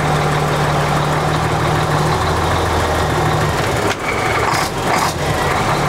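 A 1985 Mack R Model truck's diesel engine idling steadily, heard at its vertical chrome exhaust stack, with a few brief rushes of noise about four to five seconds in.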